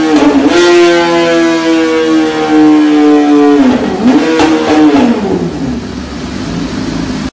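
2008 Yamaha YZF-R6's inline-four engine, breathing through an SC-Project slip-on exhaust on a custom link pipe, revved high and held steady with a brief dip at the start. About three and a half seconds in the throttle closes, the engine is blipped once more, and the revs fall away.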